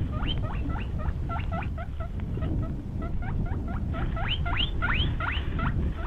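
A small animal giving quick runs of short, sharply rising squeaks, several a second, with a lull midway, over a steady low rumble.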